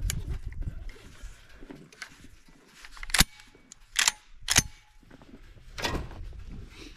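Four sharp cracks or snaps: the loudest about three seconds in, two more close together about a second later, and a last one near the six-second mark.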